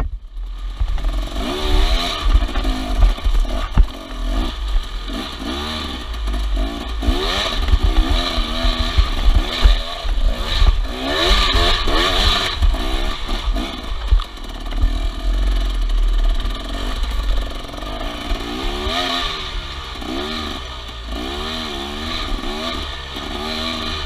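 KTM enduro motorcycle engine revving up and down again and again as the rider works the throttle on a rough, rocky climb, with the bike rattling and knocking over rocks and a heavy low rumble.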